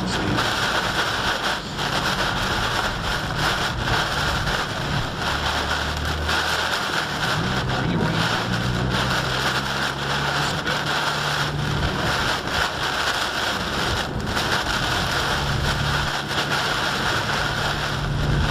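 Heavy wind-driven rain pounding on a car's windshield and roof, heard from inside the cabin as a dense, steady hiss, with gusts of wind buffeting the car.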